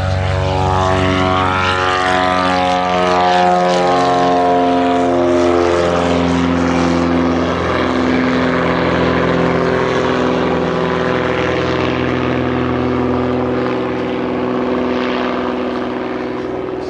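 Britten-Norman BN-2B-26 Islander's twin Lycoming O-540 piston engines and propellers at take-off power as the aircraft lifts off and climbs away. The propeller drone drops in pitch over the first several seconds, then holds steady with a pulsing beat.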